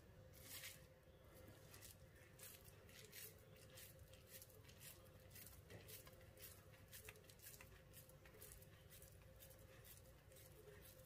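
Faint, soft squishing and crackling of crumbly curd-cheese dough being pressed and rolled into a ball between bare hands, with a faint steady hum underneath.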